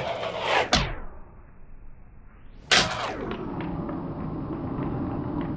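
Fingerboard on a desktop: its tail cracks against the wood and it lands with a clack at about one second and again at nearly three seconds, with the small wheels rolling across the desk in between and after. The sound is slowed down for slow motion, so it turns dull and muffled after the first clack.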